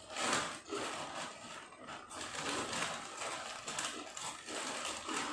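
Potato chips being bitten and chewed, an irregular run of crisp crunches.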